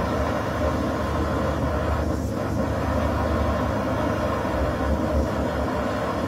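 Canister gas backpacking stove burner running steadily under a pot of water that is nearly at a rolling boil.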